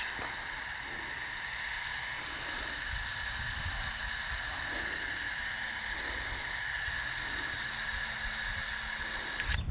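Garden hose spray nozzle spraying a steady hissing jet of water, turned on sharply at the start and cut off near the end.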